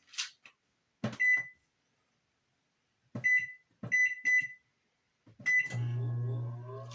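Microwave oven keypad: five short high beeps with button clicks as a cooking time is keyed in. About a second before the end, the oven starts and runs with a steady low hum, now working with its new door switch fitted.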